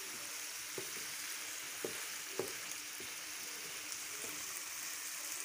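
Mutton liver pieces sizzling steadily in hot oil in a frying pan as they are browned with spices, with a few short knocks of a spatula against the pan as they are stirred.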